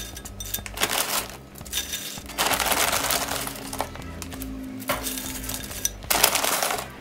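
Tortilla chips being handled and laid on a ceramic plate, with small clicks and clinks, and a foil-lined chip bag crinkling in longer stretches, the longest about two and a half seconds in and another near the end.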